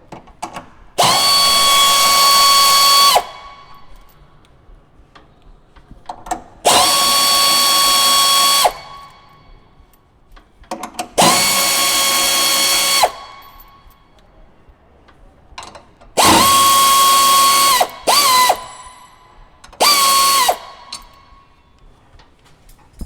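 Cordless electric drill-driver running in short bursts, removing screws while a power unit is taken apart. There are four steady runs of about two seconds each, then two shorter ones near the end. Each run winds up and down in pitch at its start and stop.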